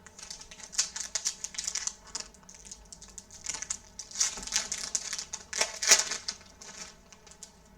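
Crinkling and rustling of a trading-card pack wrapper with cards being handled: a dense run of irregular crackles and soft clicks that thins out near the end.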